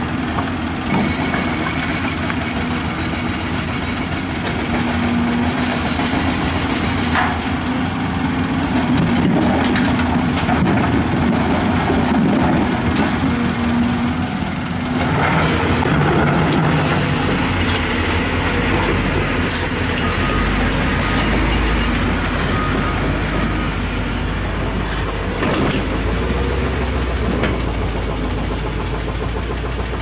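Diesel engine of a Hyundai HX200SL crawler excavator running hard as it digs limestone and swings, with a few sharp knocks of rock and bucket, and a dump truck's engine running alongside. A deeper engine rumble joins about halfway through.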